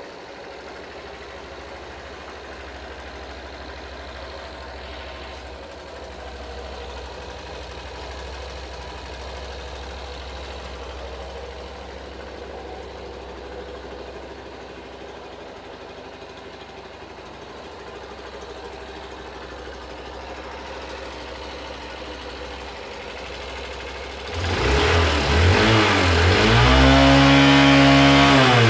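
Hero Hunk 150 motorcycle's single-cylinder four-stroke engine idling steadily through its exhaust, then revved hard near the end, the pitch climbing and falling back.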